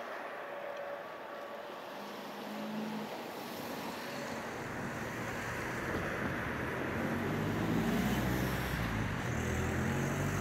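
Electric locomotive running light, pulling away along the track, under a steady rush of wind noise. A low rumble builds up over the second half.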